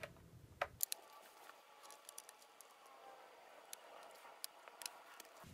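Faint, scattered clicks and taps of a plastic laptop access panel being set in place over the motherboard bay and pressed down.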